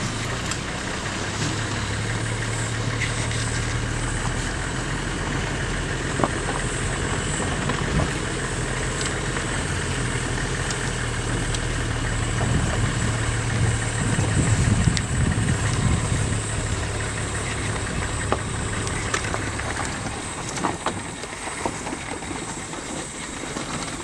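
Safari vehicle's engine idling with a steady low hum, which swells louder for a few seconds about halfway through and dies away near the end.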